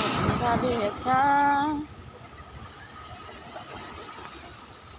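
A woman singing in a background song: a short phrase that ends in a loud held note, cut off just under two seconds in, then only faint steady background with a thin high tone.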